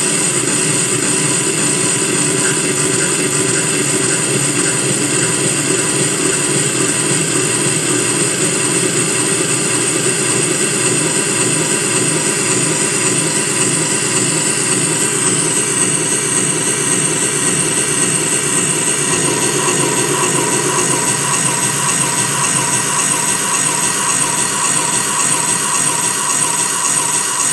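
Steady, dense droning noise from a microcassette recorder's tape playback fed through a delay pedal, the repeats piling into a continuous wash. The texture shifts about halfway through, and a steady mid-pitched tone joins in later.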